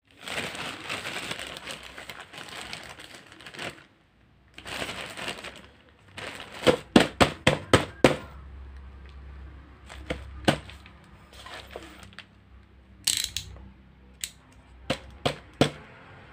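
Thin plastic mailer bag rustling as it is handled, then a quick run of about six sharp clicks, followed by scattered single clicks and another short rustle.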